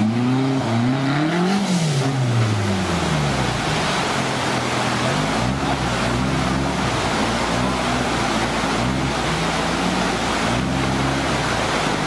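Off-road 4x4 competition truck's engine revving up and down as it drives through a boulder-strewn river, over the steady rush of fast-flowing water. The revving is loudest in the first couple of seconds; after that it comes and goes more faintly under the water noise.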